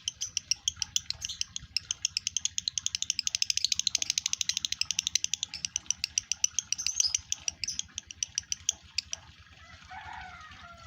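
Male lovebird in breeding condition giving its long chattering song: a fast, even run of sharp high chirps that packs tighter in the middle and stops about nine seconds in, followed by a few softer sliding calls.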